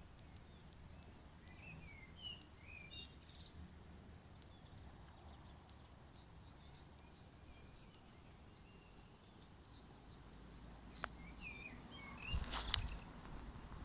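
Faint outdoor ambience with birds chirping in the distance: a few short chirps a couple of seconds in and again near the end. A click and a few soft thumps come near the end.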